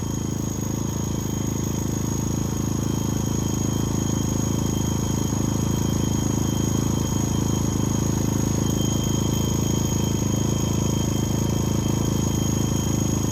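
A-iPower SUA1500i portable inverter generator's small gas engine running steadily under a load of about 1,200 watts from an electric heater.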